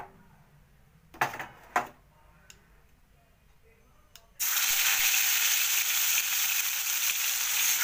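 Two sharp knocks about a second in, then, about four seconds in, a sudden loud sizzle as a piece of fish goes into hot oil in a kadai, hissing steadily as it starts to fry.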